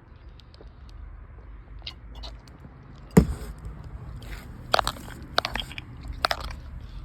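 Crunching and scraping as weeds are pulled and scraped out from between deck boards, with a few sharp cracks, the loudest about three seconds in.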